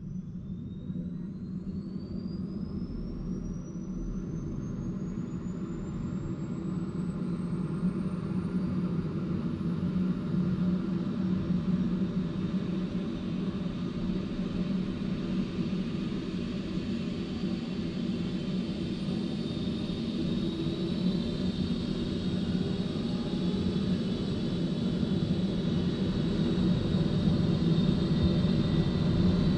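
Rescue helicopter's turbine engine spooling up on the ground: a thin whine climbs steadily in pitch over the first ten seconds or so and then holds high over a low rumble. The whole sound grows gradually louder as the rotor comes up to speed.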